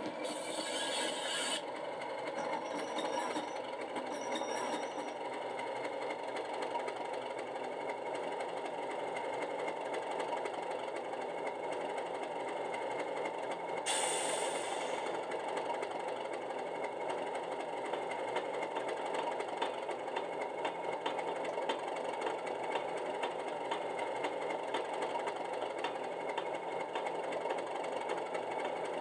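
A DCC sound decoder in an OO-gauge Accurascale Class 37/0 model plays a Class 37's English Electric diesel engine through the model's small speaker as the loco slows to a stop. Brief high squeals come a few seconds in and a sudden hiss about 14 seconds in, then the engine idles steadily.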